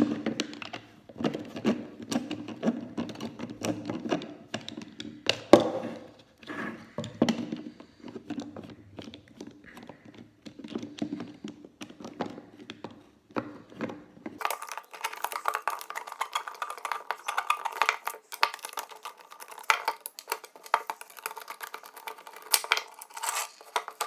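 A hand screwdriver turning out the screws of a plastic washing-machine drain pump housing: irregular clicks, scrapes and taps of the screwdriver and plastic parts. Past the middle, the sound turns abruptly thin and high, with quicker clicking.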